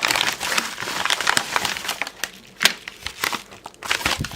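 Crinkling packaging of a phone camera repair kit being handled and opened: a dense crackling rustle for about two seconds, then scattered crackles and clicks.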